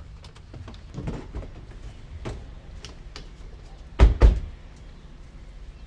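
Doors shutting: light clicks and knocks, then two heavy slams in quick succession about four seconds in.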